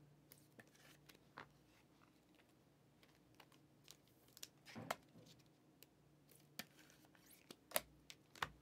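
Faint, scattered plastic clicks and rustles of trading cards being slid into clear penny sleeves and a rigid toploader, with a handful of sharper ticks, the loudest near the end.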